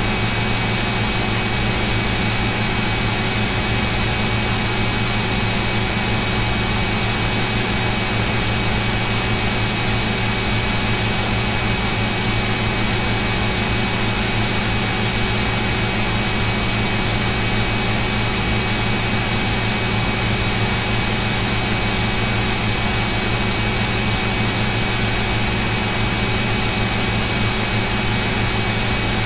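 A loud, steady mechanical hum with hiss, unchanging throughout, with several constant pitched tones running through it.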